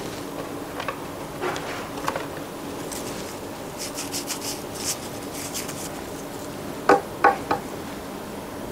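Reed diffuser sticks handled at the diffuser bottle: a few soft taps, a brief dry rustle in the middle, then three sharp clicks in quick succession near the end.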